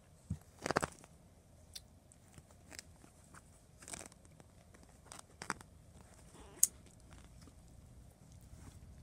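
Kittens playing on a fabric cushion: scattered short scratches, rustles and light taps of paws and claws on cloth, loudest in a brief cluster about a second in, with a sharp tick a little past the middle.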